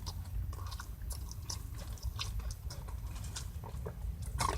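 A person chewing and biting food, with many small scattered clicks over a low steady hum.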